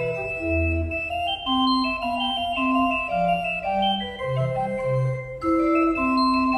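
Organ music: a melody of held notes over moving lower notes.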